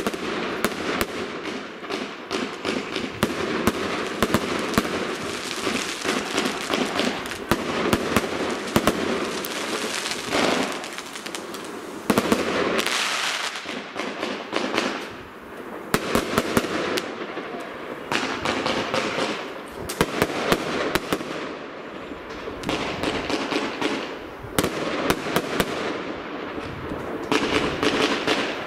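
Fireworks display: a dense, continuous rapid crackle with many sharp bangs of bursting shells among it, easing off briefly a couple of times.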